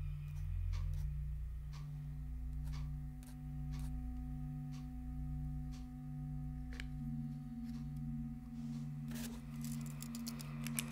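Low pulsing drone with a steady tone that enters about two seconds in and begins to pulse about two-thirds of the way through, under scattered sharp clicks that quicken into a flurry near the end.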